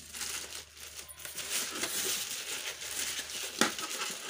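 Plastic wrapping crinkling and rustling as a bagged laminator is handled and lifted out of its foam packing, with one sharp knock about three and a half seconds in.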